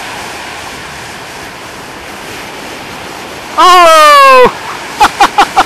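Wind buffeting the microphone over the rush of surf. About three and a half seconds in comes a loud, drawn-out shout of "Oh!" that falls in pitch as the towed banana boat capsizes, followed near the end by a quick run of short, loud vocal bursts.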